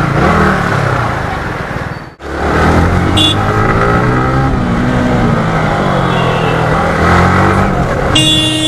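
Motorcycle engine on the move, its pitch rising and falling with throttle and gear changes over wind and road noise. The sound drops out briefly about two seconds in, and a high tone starts near the end.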